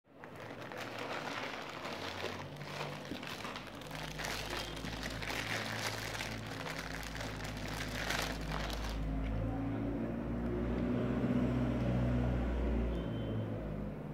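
Plastic packaging crinkling as a courier mailer bag and the clear inner bag are handled and pulled apart. The crinkling stops about nine seconds in, leaving a low steady hum underneath.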